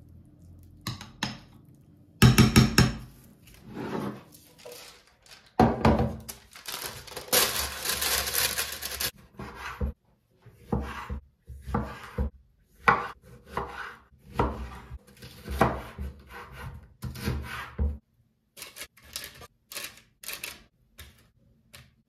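Kitchen prep sounds: a spoon working a thick marinade in a glass bowl, then a knife cutting tomatoes on a wooden cutting board, knocking on the board about once a second. A louder rustling stretch comes about seven seconds in.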